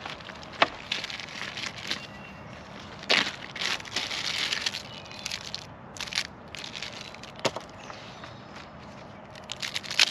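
Small camping gear being handled: plastic-wrapped packets rustle and crinkle in the hands, with a few sharp clicks and knocks as items are picked up and set down.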